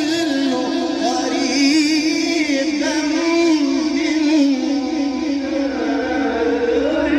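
A reciter's voice chanting Quran recitation, drawing out a long melodic phrase with wavering, ornamented pitch.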